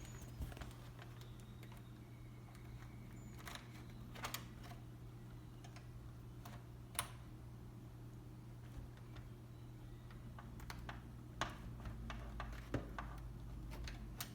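Coat-hanger wire tool worked against a door's deadbolt latch, making scattered light clicks and taps with a few sharper ones, over a low steady hum.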